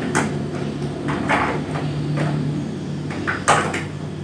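Hands handling the plastic casing and parts of a Panasonic wall-mounted split AC indoor unit, giving a series of short knocks and clicks. The loudest is a cluster of clicks a little past three seconds in. A steady low hum runs underneath.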